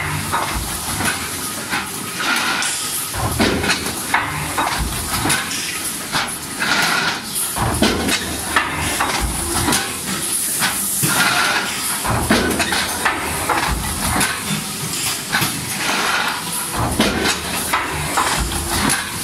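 Steel pail body forming machine running, with irregular metal knocks and clanks from its forming heads and a steady hiss of air.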